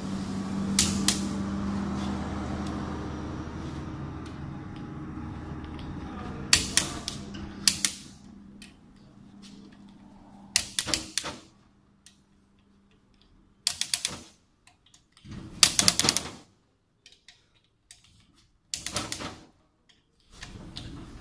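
Ratchet of a long click-type torque wrench clicking in about six short bursts of rapid clicks as the crankshaft bolts of a Nissan Navara engine block are torqued to 10 kg. A steady low hum runs under the first half and fades out.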